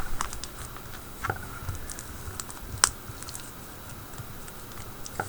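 Very thick slime with foam beads being squeezed and pressed by hand, giving scattered small clicks and crackles, with one sharper pop near the middle.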